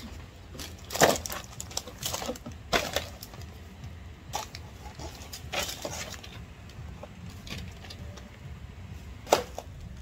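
A shopping bag rustling and crinkling as items are pulled out of it, with a carded plastic blister pack handled. There are irregular crackles and knocks, the sharpest about a second in and near the end.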